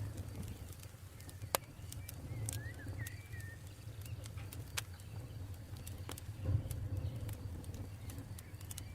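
Campfire burning with a steady low rumble and scattered sharp crackles and pops, the loudest pop about a second and a half in. A bird gives a few short chirps around two to three seconds in.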